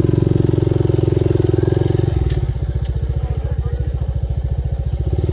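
Motorcycle engine running while riding, a steady train of exhaust pulses; the note drops a little about two seconds in and rises again near the end.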